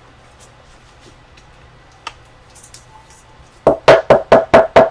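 A quick run of about seven sharp taps or knocks on a hard object, roughly six a second, near the end.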